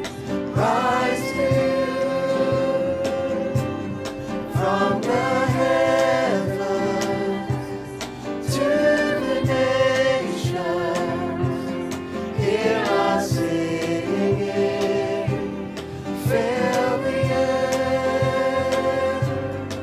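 Worship song: a group of voices singing long, drawn-out phrases, a new one starting about every four seconds, over band accompaniment with a steady beat.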